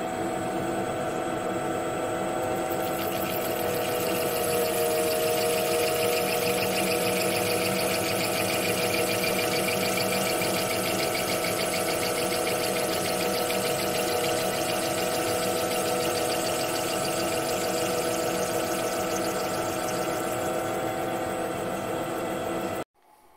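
A DIY CNC lathe runs steadily with a motor whine at several pitches while its tool cuts a 3D-printed ABS part. A hiss of cutting joins about three seconds in. The sound stops abruptly near the end.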